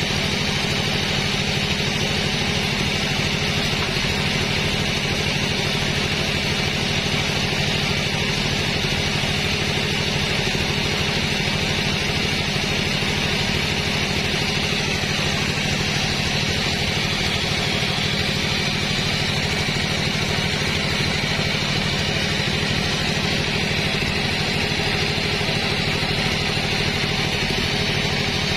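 Sawmill machinery running steadily: an even engine or motor hum with a higher hiss over it, unchanging throughout.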